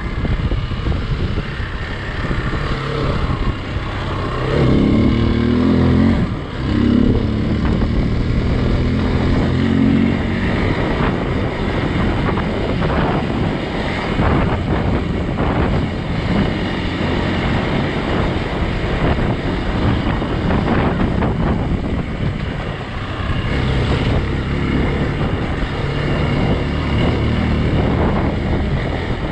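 Hero XPulse 200 dual-sport motorcycle's single-cylinder four-stroke engine running under way on a dirt trail, its note shifting with the throttle, with wind buffeting the microphone. Through the middle the engine is partly buried under rough, rattly noise from the riding.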